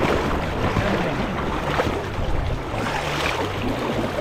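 Wind buffeting the microphone over river water sloshing and splashing as a trout is scooped into a landing net.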